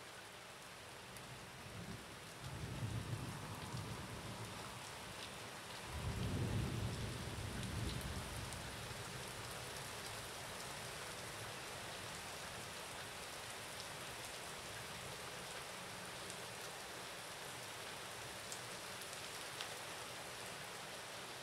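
Steady rain with thunder rumbling twice, the first about two seconds in and a louder one about six seconds in, each dying away over a few seconds while the rain keeps falling.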